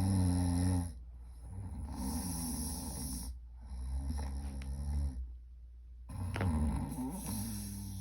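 Loud snoring: a run of long snores, about one every two seconds, with short breaths between them.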